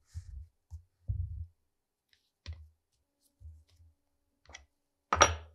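Bench vise being handled and tightened on a rusty airgun part: a series of soft knocks and clunks, then a sharp metallic clank with a brief ring about five seconds in.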